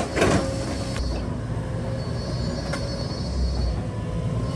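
Excavator engine and hydraulics running steadily, with a constant whine over a low rumble. There is a short loud metallic screech right at the start.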